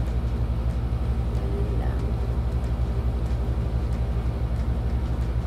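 A steady low hum with a fast, even flutter that does not change; near the middle there is a faint, brief murmur of voice.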